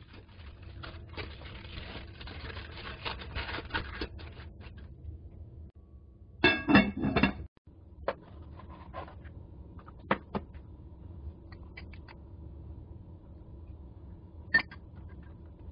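Cabbage leaves rustling and crackling as they are handled, then a quick run of knife strokes through a cabbage leaf onto a plastic cutting board about six and a half seconds in. Scattered light ticks follow, with a single sharp tap near the end.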